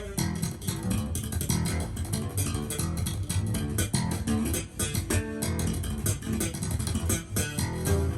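Music played through ProAc Studio 140 Mk2 floor-standing loudspeakers: a band track led by bass guitar and guitar, with a quick run of drum hits.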